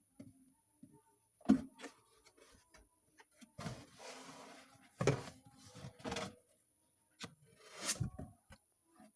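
Cat bumping and scratching about inside a cardboard box: scattered knocks and rustling against the cardboard, with the loudest thumps about a second and a half, five and eight seconds in.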